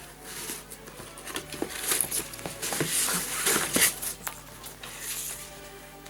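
Ribbon being untied and pulled off a cardboard gift box: rustling and crinkling with small clicks and taps, busiest in the middle.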